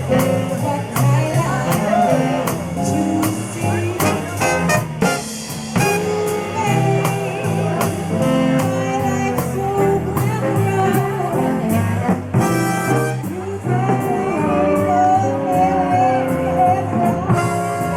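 A jazz band playing an up-tempo song, with a singer, horn and guitar over a steady beat.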